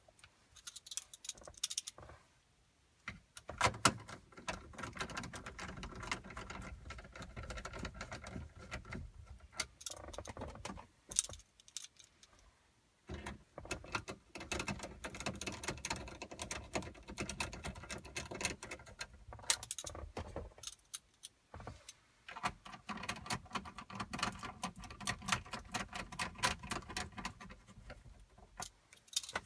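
Hands working plastic dash trim and small screws around a car stereo: irregular clicks, rattles and scraping of plastic and small metal parts, with two short pauses.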